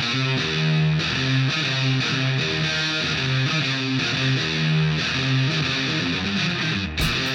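Background music: a repeating riff on distorted electric guitar, with drum hits coming in near the end.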